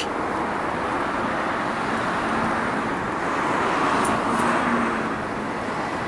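Road traffic noise from cars passing on the street, with one vehicle swelling louder and fading away about four seconds in.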